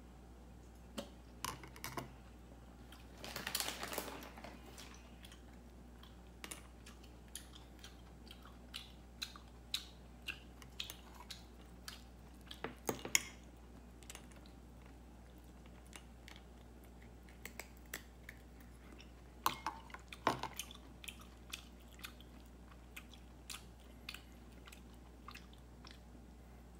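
A cat eating from a small porcelain dish: quiet chewing with irregular sharp clicks and smacks. There are louder clusters about three and a half seconds in, about thirteen seconds in and about twenty seconds in.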